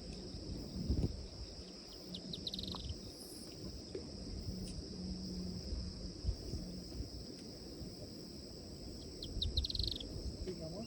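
Insects trilling steadily at a high pitch, with a short run of quick chirping bird notes twice, a couple of seconds in and again near the end. Low rumbling thumps sit underneath.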